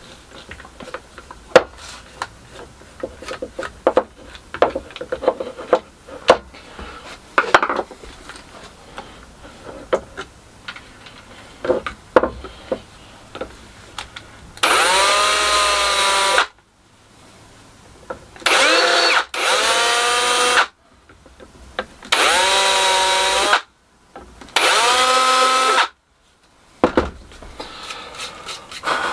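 Small clicks and knocks of hand work, then an electric drill run five times in short bursts of one to two seconds, each time spinning up and then holding a steady whine. The drill is deepening the countersinks for the screws in a perspex router base plate so that the screw heads sit below the surface.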